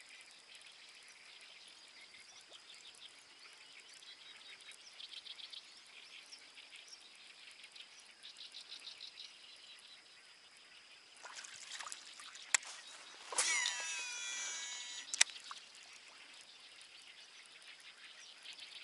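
Frogs and insects calling steadily, with rhythmic trills in the first half. Later a fishing reel whirs for about two seconds with sweeping tones, opened and closed by sharp clicks; this is the loudest sound.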